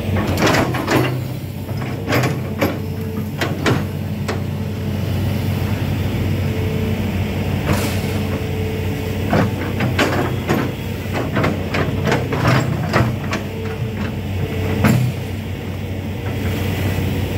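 Hitachi amphibious excavator's diesel engine running steadily while its long-reach arm and bucket dig mud and vegetation out of a canal, with repeated sharp knocks and clanks through the digging.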